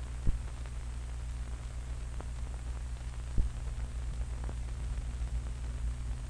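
Hiss and steady low hum of an old 16mm film's optical soundtrack, with a few scattered clicks and pops.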